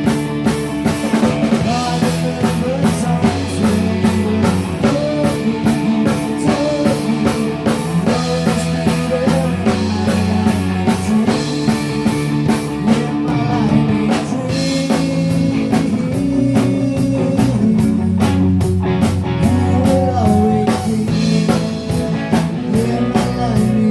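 Rock band playing live in rehearsal: drum kit keeping a steady beat under electric guitar and bass, an instrumental stretch of the song with no words sung.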